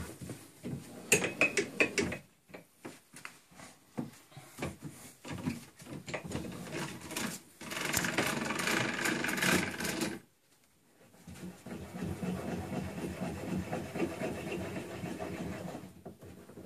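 Metal-on-metal handling of a small homemade lathe's loosened tailstock: a run of clicks and knocks, then two longer stretches of scraping and rubbing as the tailstock is shifted on the bed ways.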